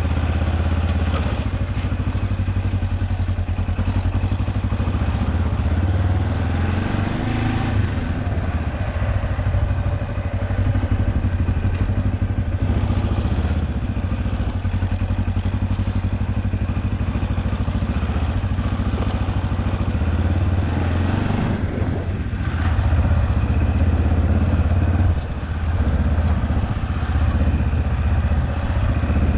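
Kawasaki KLE 400 parallel-twin engine running under way on a ride, its note steady but shifting with the throttle at a few points.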